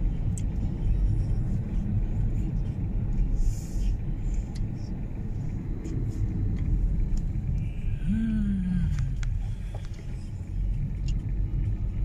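Steady road and engine rumble of a moving car, heard from inside the cabin. About eight seconds in, a person's voice sounds briefly with a falling pitch.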